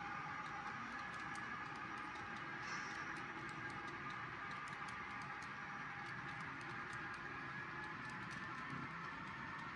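Model railroad freight cars rolling past on the track: a steady rolling hum with a faint whine, and light, irregular clicking of the wheels.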